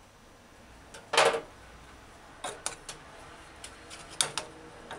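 A metal ladle clinking against a stainless steel saucepan while stew is scooped out: one louder clatter about a second in, then several light, scattered clinks.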